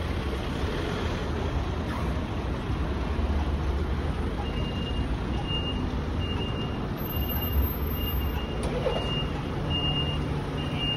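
Street traffic noise with a vehicle engine running, and from about four seconds in a vehicle's reversing alarm beeping: a single high tone, about three beeps every two seconds.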